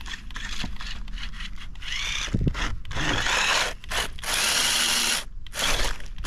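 RC rock crawler's electric motor and gears whining in repeated short bursts as the throttle is pulsed, some bursts rising in pitch, with one longer run about four seconds in.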